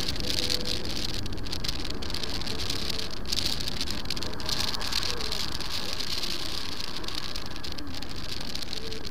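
Wind rushing over an action camera's microphone on a moving Piaggio MP3 350 scooter, a steady fluttering hiss. The scooter's single-cylinder engine runs underneath, its pitch drifting slightly with speed.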